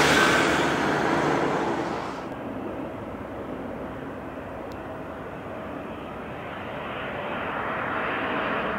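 Jet engine noise of an easyJet Airbus A320-family airliner flying away, loudest at the start and fading. After an abrupt cut a couple of seconds in comes the quieter, steady engine noise of a KLM Embraer regional jet on landing approach, slowly growing louder toward the end.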